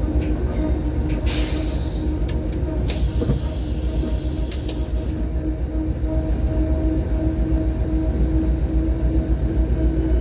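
Train running: a steady low rumble with a constant hum, broken by two bursts of hissing, about a second in and from about three to five seconds.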